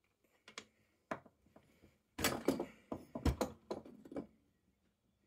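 Metal parts of an old breast drill clicking and knocking as it is taken apart and laid down on a wooden workbench: a few light clicks, then a cluster of louder knocks and clatter about two seconds in.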